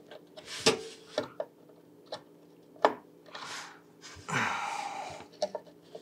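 Scattered small clicks and knocks of a PCIe expansion card being handled inside a PC case as it is lined up with its slot, the loudest about three seconds in. Two heavy breaths follow near the end of the handling, about a second apart.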